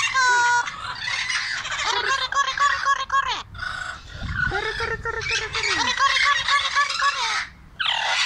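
Parrots squawking and chattering, many short pitched calls crowding over one another, with a couple of brief lulls.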